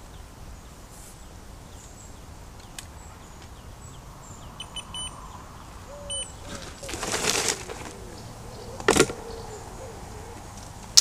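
Outdoor riverbank ambience: a steady low background noise with a few short bird chirps, a rustling burst about seven seconds in and a single sharp knock about nine seconds in, as fishing tackle is handled.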